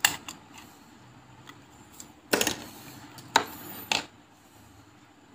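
Small metal clicks and taps of steel tweezers against the parts of an opened wristwatch: one at the start, a quick cluster a little past two seconds in, then two more about a second later.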